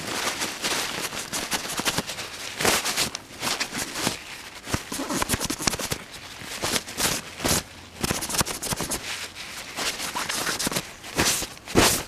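A cloth rubbing and wiping over the camera lens right at the microphone: close, irregular scuffing and crackling strokes, one after another.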